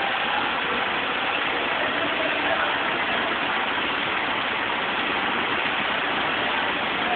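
ACE mobile crane's diesel engine running steadily while it holds a load on its hook.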